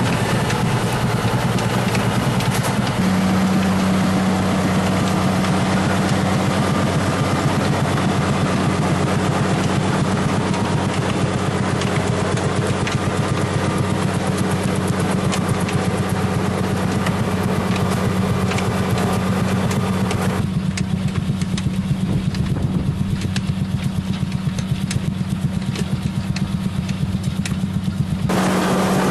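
Tractor engine running steadily under load with machinery clatter. The high hiss drops away abruptly about two-thirds of the way through and returns near the end.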